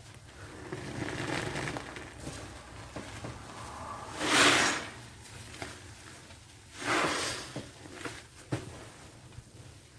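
Soapy, wet sponge squeezed by hand: soft squelching, with two louder squeezes a couple of seconds apart near the middle.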